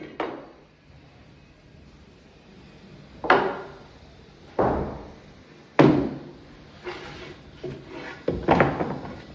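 A series of about eight irregular wooden knocks and thuds, roughly a second apart. The loudest come about three and six seconds in.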